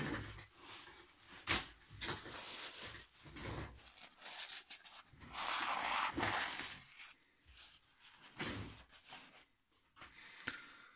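Hands handling the metal parts of a Traxxas X-Maxx center differential on a workbench: paper towel rustling, with scattered clicks and light knocks of metal parts, the longest rustle about halfway through.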